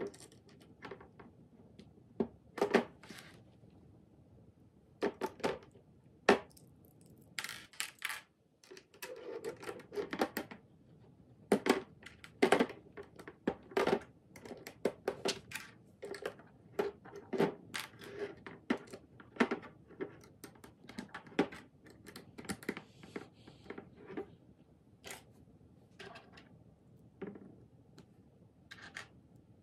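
Plastic LEGO bricks clicking and clattering as pieces are picked from a loose pile on a tabletop and pressed onto a model, in irregular sharp clicks and knocks.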